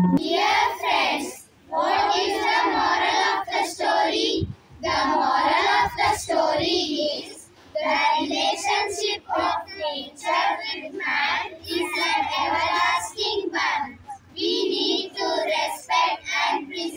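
A group of children singing together in unison, in phrases of a second or two with short breaks between them.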